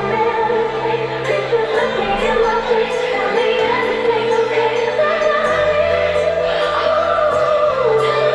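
Electronic dance music from a DJ set on a club sound system: held bass notes that shift every second or two, under a sung melody.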